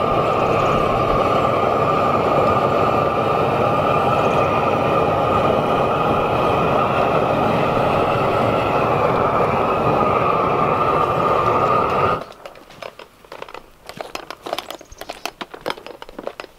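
Hand-held propane torch running with a steady, loud rush and an even whine, shut off suddenly about twelve seconds in. After that, scattered light knocks and clicks.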